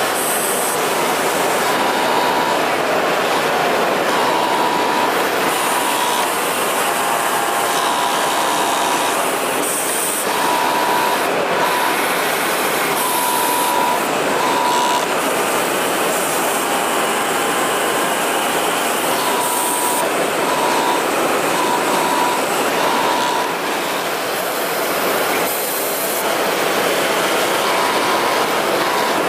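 Kingtex direct-drive flatlock (interlock) industrial sewing machine running, with a dense, steady rattling clatter. A high tone comes and goes in short stretches over it.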